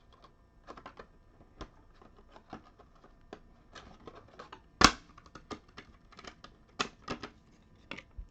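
Trading cards and their plastic holders being handled and set down on a table: scattered light clicks and taps, with one louder sharp knock about five seconds in.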